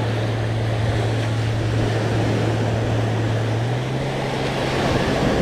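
A motor drones steadily over a wash of surf and wind noise. Its pitch steps up slightly a little past halfway, then holds.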